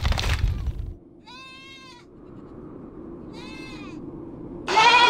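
Livestock bleating: three wavering calls about half a second each, the last one near the end the loudest. A low thud in the first second.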